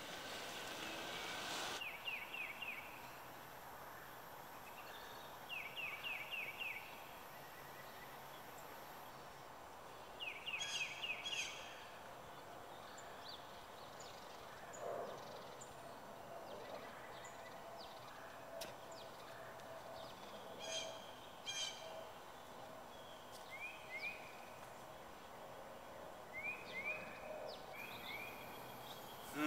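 Quiet outdoor ambience with a bird calling: short bursts of rapid, repeated chirping notes, heard about four times, with fainter chirps in between.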